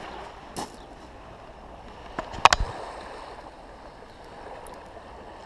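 A few sharp metallic clicks from folding multitool pliers being opened and worked, the loudest about two and a half seconds in, over the steady hiss of calm sea lapping on a shingle beach.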